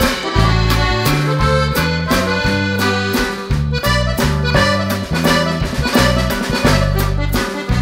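Background instrumental music led by an accordion over a bass line and a steady beat.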